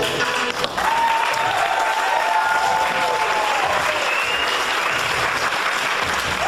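Audience applauding after a circus act's music stops, with a few voices calling out over the clapping in the first few seconds.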